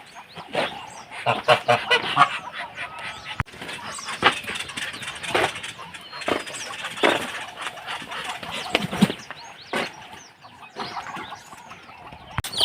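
Farm poultry calling: a run of short, irregular calls, one after another, as the birds gather for their morning feed.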